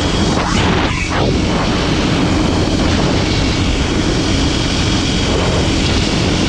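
Kawasaki KLX300SM supermoto's single-cylinder four-stroke engine running under way, over steady rushing noise; about a second in, the engine note dips and climbs again.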